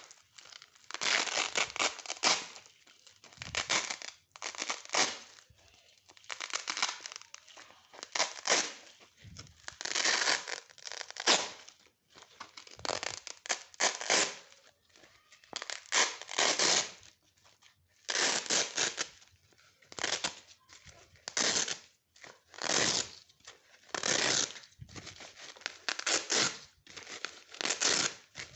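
Hook-and-loop velcro strips being ripped apart again and again, a crunchy tearing rasp about once a second with short pauses between rips.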